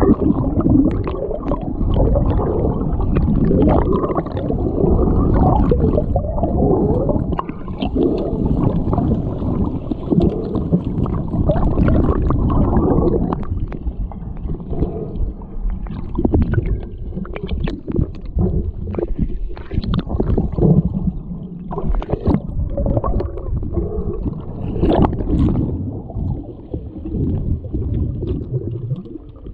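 Muffled gurgling and sloshing of pool water with many scattered sharp knocks and clicks, somewhat duller from about halfway through.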